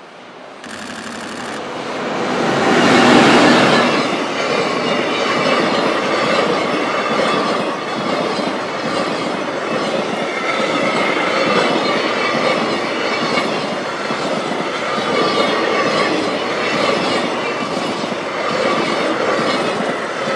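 Freight train hauled by an EH500 electric locomotive passing close by, loudest as the locomotive goes past about three seconds in. A long run of loaded container wagons then rolls by with a steady clickety-clack of wheels over the rail joints and wheel squeal that comes and goes.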